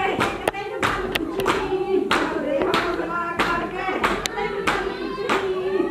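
A group of women singing together while clapping their hands in a steady rhythm, about two to three claps a second.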